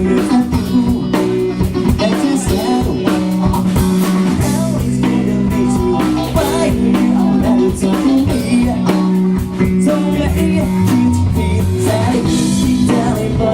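A live band playing a song, with guitar, a drum kit and a singing voice.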